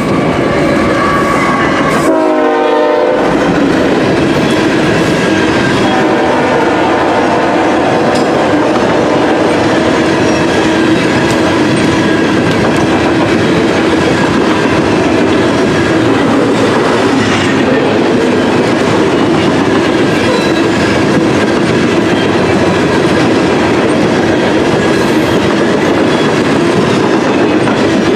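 Norfolk Southern freight train passing close by: the horn of the lead GE ES44AC locomotives sounds briefly, ending about three seconds in. After that, loaded coal hoppers roll past with a steady rumble and the clickety-clack of wheels over the rail joints.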